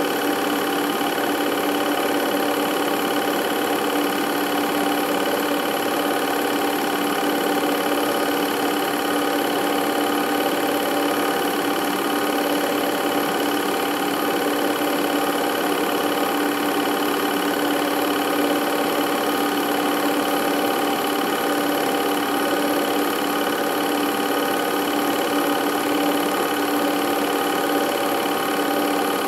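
Film projector running: a steady mechanical whir with a constant hum that does not change across the scene cuts.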